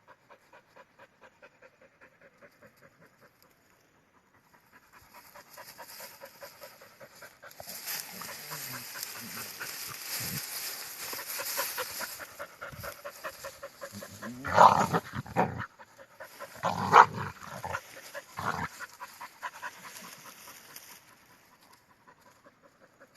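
An animal panting in quick rhythmic breaths, with two loud calls about fifteen and seventeen seconds in and a smaller one shortly after.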